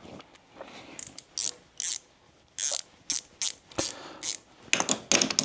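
Irregular series of sharp mechanical clicks and short rasping strokes.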